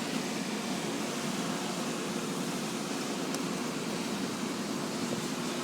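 Steady rushing drone of air being blown into an iron-smelting furnace, with a faint steady hum underneath.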